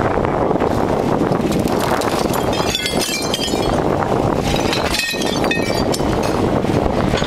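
Bobcat mini excavator's engine running steadily while its bucket pushes into a brick wall, with two spells of clinking and cracking of breaking brick about two and a half and five seconds in.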